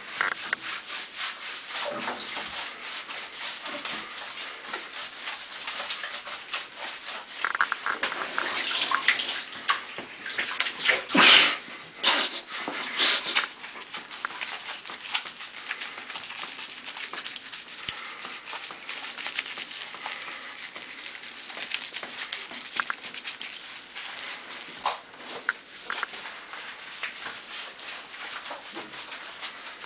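Hands scrubbing a cat's wet, soapy fur in a bathtub: steady rubbing with water sloshing, and a few louder sudden noises about eleven to thirteen seconds in.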